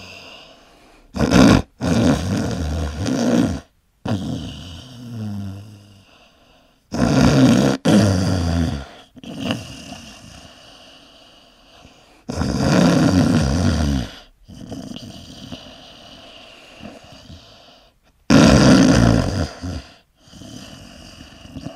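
Loud, exaggerated snoring: four long, rough snores about five to six seconds apart, each trailing off into a softer breath that falls in pitch.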